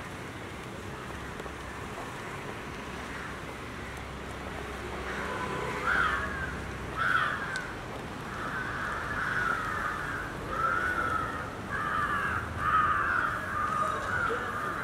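Crows cawing in a string of repeated calls that starts about six seconds in, over a steady low background rumble.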